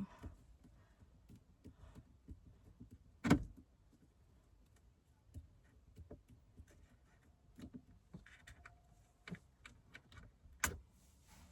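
Screws being undone with a hand screwdriver at a car's dashboard radio: faint scattered clicks and scrapes, with two louder knocks, about three seconds in and near the end.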